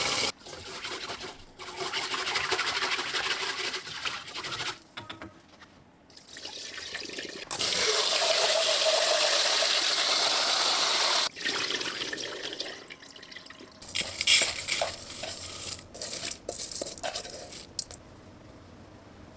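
Tap water running and splashing into a stainless steel bowl of rice being washed, the rice swished through the water. The flow starts and stops several times and is steadiest midway. Toward the end come irregular splashes and sharp clinks against the bowl.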